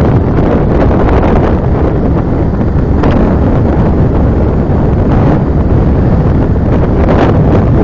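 Loud, steady wind buffeting the microphone of a camera on a moving motorbike, with a low rumble from the bike underneath.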